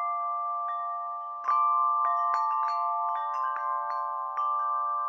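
Background music of chime-like struck notes ringing over a held chord, with a light melody of single strikes.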